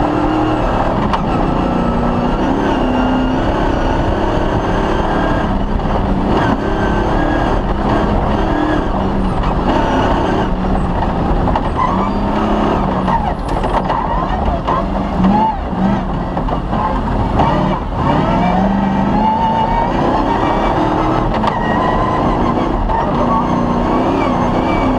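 Cross-country rally car's engine running hard on a special stage, its revs climbing and dropping again and again, over steady tyre and road noise.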